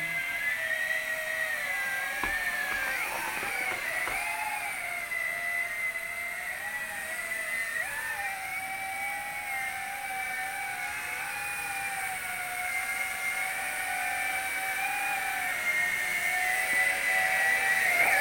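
Electric motor and propeller of a WLtoys Q202 foam RC amphibian plane whining in flight, the pitch wavering up and down with the throttle. It grows louder near the end.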